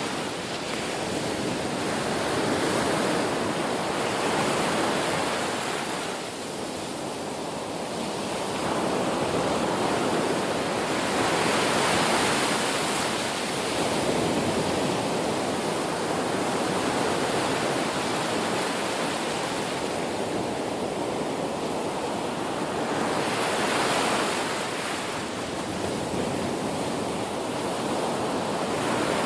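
Ocean waves washing onto a shore: a continuous rush of surf that swells louder and eases off again every several seconds.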